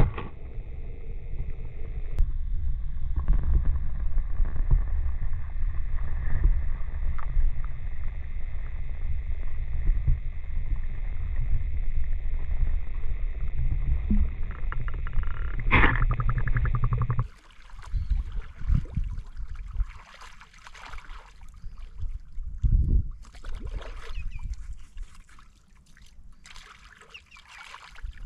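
Muffled sound from a camera held under the water in shallow sea: a steady low rumble of water moving around it, with one sharp knock about 16 seconds in. Then the sound switches suddenly to quieter open air, with gentle splashing and lapping water as a person bathes in the calm sea.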